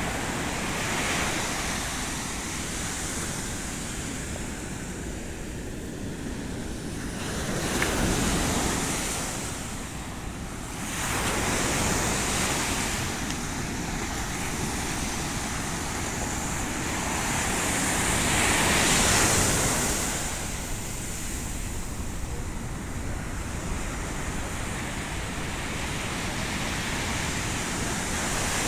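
Sea waves breaking and washing up a sandy shore, swelling louder in several surges, with wind buffeting the microphone.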